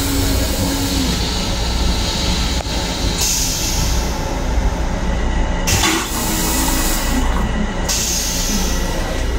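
Running noise of a Long Island Rail Road M7 electric multiple-unit railcar heard in its restroom: a steady low rumble. A high hiss comes in about three seconds in and stops with a sharp click near six seconds, then returns about eight seconds in.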